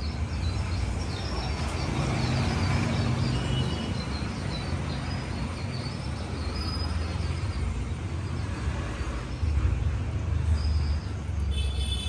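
Outdoor background: a steady low rumble, with high chirps in the first few seconds.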